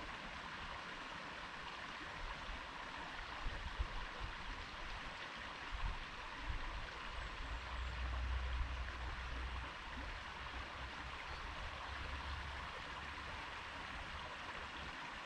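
A stream running steadily, with a constant rushing and babbling of water. A few low rumbles come and go around the middle.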